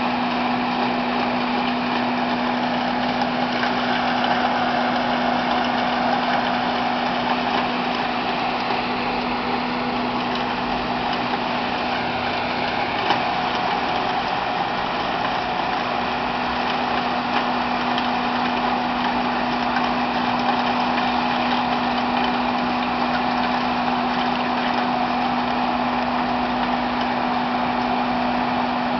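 LTMG LT65 skid steer loader's engine running at a steady speed, holding one even pitch.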